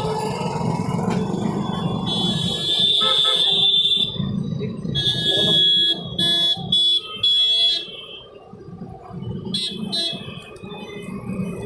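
High electronic beeping tones, with a run of several short beeps in the middle, over a low background rumble.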